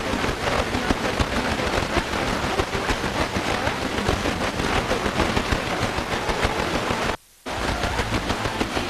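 Sony XDR-F1HD FM tuner giving steady hiss and crackling static on a weak, distant signal at 103.2 MHz. The sound cuts out for a moment about seven seconds in, as the tuner steps to 103.3 MHz.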